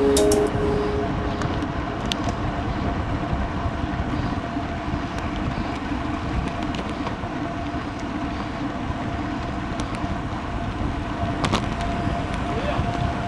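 Wind rushing over the microphone and tyre noise from a road bike riding at about 35 km/h, with a few light ticks.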